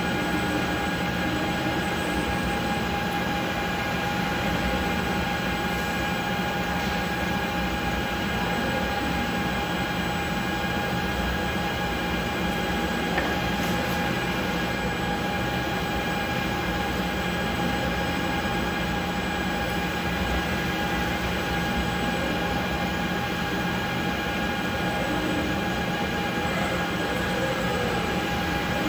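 Concrete 3D printing rig running: a continuous machine drone with several steady whining tones that do not change.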